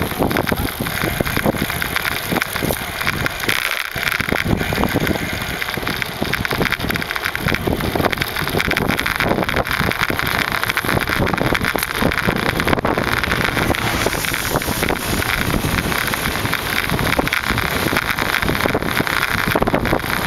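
Wind rushing over the microphone on a moving bicycle, with road noise, a steady noisy rush and an unsteady low buffeting rumble.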